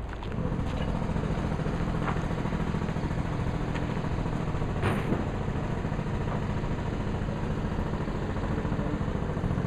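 A motor or engine running steadily, coming in about half a second in, with a few light clicks over it.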